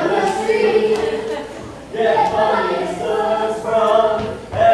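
A group of children singing together without accompaniment, in held phrases that pause briefly about two seconds in and again just before the end.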